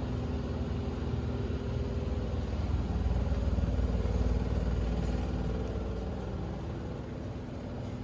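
A steady low mechanical rumble with a hum, swelling a little around the middle.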